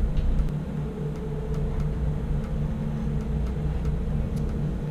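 Steady low mechanical hum with a few held low tones and faint scattered clicks.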